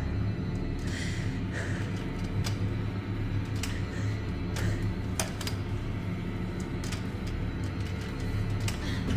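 Horror-film soundtrack: a low, steady drone with sharp clicks scattered through it at irregular intervals.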